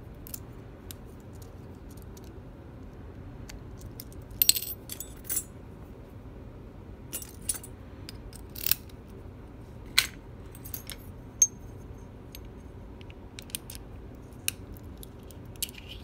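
Small metal lock parts clicking and clinking as a Dorma 3003 pin-tumbler cylinder and its key are handled and taken apart over an aluminium pinning tray: scattered sharp ticks, the loudest a short cluster about four and a half seconds in.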